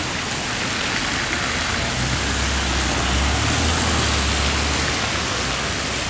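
Steady hiss of traffic on a wet, slushy street, with a vehicle's low rumble coming up about two seconds in and fading out about three seconds later.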